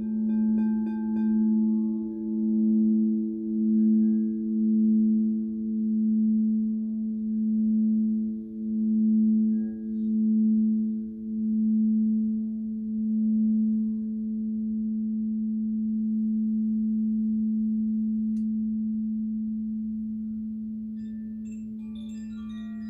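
A frosted crystal singing bowl sung by a mallet circling its rim: one deep, steady tone with fainter overtones, swelling and ebbing about once a second. About two-thirds of the way through the swelling stops and the tone rings on, slowly fading. Near the end a few high chime notes join in.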